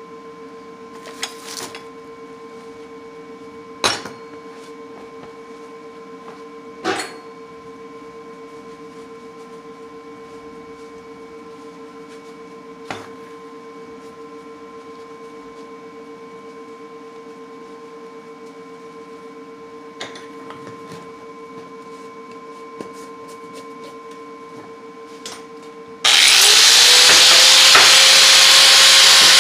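A steady background hum with a few separate knocks and clunks of tools and parts being handled on a metal workbench. Near the end an electric angle grinder switches on and spins up, its pitch rising briefly before it runs loud and steady.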